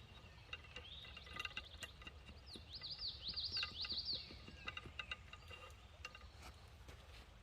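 A songbird singing: a quick run of high chirping notes that slide downward, strongest a little after the middle, over a low outdoor rumble with a few faint clicks.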